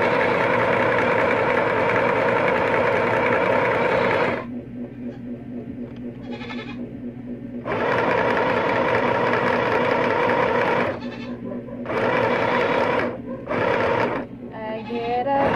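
Small portable sewing machine stitching fabric, its motor and needle running in spurts: a steady run of about four seconds, a pause of about three seconds, then another run of about three seconds and a few short bursts. Near the end the pitch steps up and down as the speed changes.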